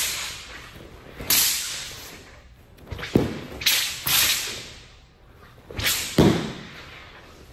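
A Shaolin dao broadsword swung hard through the air in a form: a series of sharp swishes from the blade and its sash, about eight in all. Two of them, around three and six seconds in, come with a low thud.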